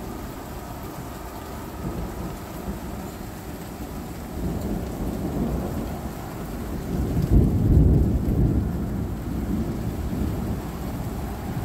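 Rolling thunder over steady light rain. The rumble builds from about four seconds in, peaks a little past the middle, and then slowly fades.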